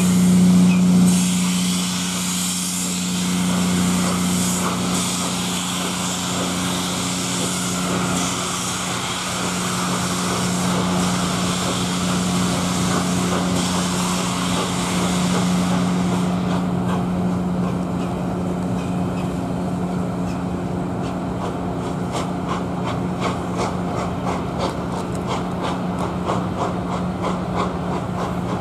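Gresley A4 three-cylinder steam locomotive pulling a train away, with loud steam hiss over a steady low drone. About halfway through the hiss thins out, and a steady run of clicks comes in from the wheels of the passing coaches.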